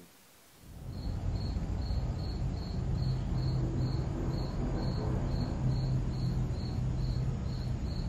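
A cricket chirping steadily, short high chirps evenly spaced at about two and a half a second, starting about a second in over a low steady hum.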